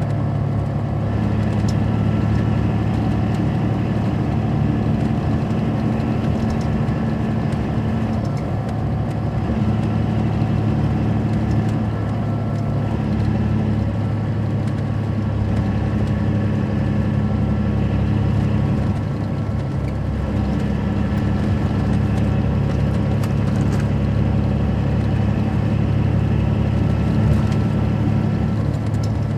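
A 2007 MCI D4500CL coach's Caterpillar C13 diesel engine running, heard from on board the bus: a loud, even drone that holds nearly the same pitch throughout, with a higher tone that fades in and out every few seconds.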